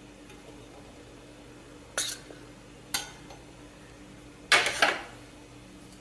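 Metal spoon clinking and scraping against stainless steel vessels: two light clinks about two and three seconds in, then a louder cluster of clatter and scraping around four and a half seconds in.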